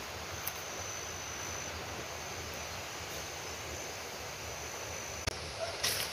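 Steady outdoor ambience in forest undergrowth: an even hiss with a thin high tone that stops about two seconds in. Near the end come a sharp click and the brushing of footsteps through ferns and grass.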